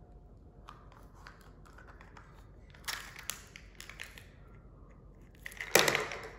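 Hard plastic of a Mini Brands toy capsule crinkling, clicking and scraping as it is handled and pried apart, in a few short bursts, with one louder sharp plastic clack and rustle near the end.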